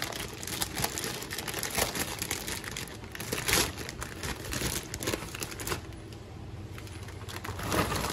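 Plastic bag of shredded cabbage coleslaw mix crinkling and rustling as it is handled and opened, louder in spells; near the end the shreds start to tip out of the bag into a plastic bowl.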